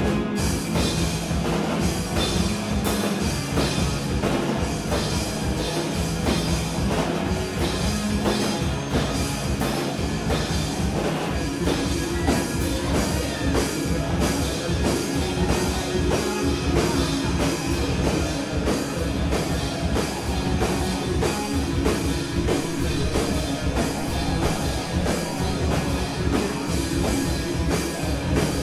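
Live rock band playing: electric guitar, drum kit and synth together at a steady beat, recorded from the back of the room.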